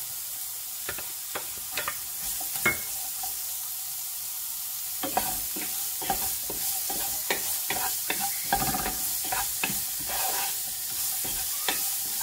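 Chopped onion sizzling in hot olive oil and spices in a non-stick frying pan, with a spatula scraping and tapping the pan in irregular strokes that come more often from about five seconds in.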